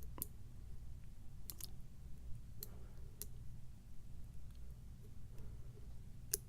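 Faint, scattered metallic clicks, about five at uneven intervals, from a lock pick and tension wrench working the pin stack of an American 1100 padlock during picking.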